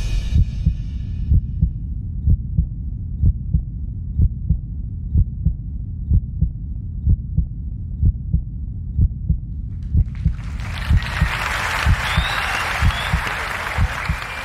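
Slow heartbeat sound effect: steady pairs of low thuds, about one pair a second. About ten seconds in, a broad rushing noise swells in beneath it.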